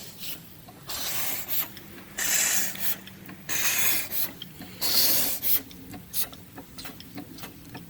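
Steam engine running slowly on steam from a Doty boiler, exhausting in rhythmic hissing chuffs about one every 1.3 seconds. After four strong chuffs the puffs turn shorter and fainter, with light ticks.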